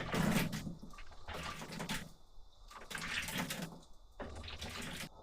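Liquid splashing or sloshing in four separate surges, each just under a second long and about a second and a half apart.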